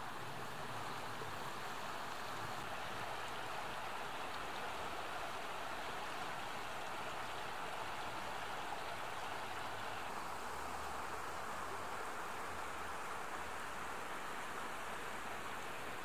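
Shallow mountain river rushing over a rocky bed: a steady, even rush of water.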